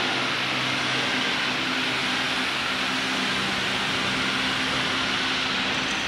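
Steady machinery noise of a factory floor: an even hiss with a low, constant hum beneath it.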